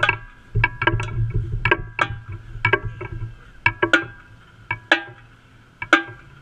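Marching tenor drums (Pearl quads) struck close to the microphone in a rhythmic pattern, each hit ringing briefly. A low rumble sits underneath in the first few seconds, and the hits thin out to scattered strokes in the second half.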